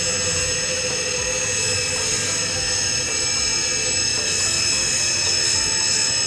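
Okuma lathe spindle spinning on a belt-driven test stand during break-in, a steady high-pitched whine of bearings and belt drive.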